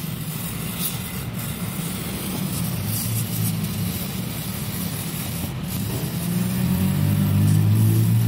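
A motor vehicle engine running steadily, growing louder about six seconds in, under the hiss of an aerosol cleaner sprayed through a straw onto a fuel pump module.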